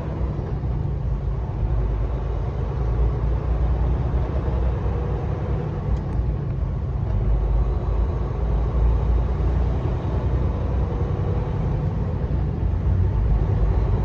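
A truck driving at highway speed, heard from inside the cab: a steady low drone of engine and road noise.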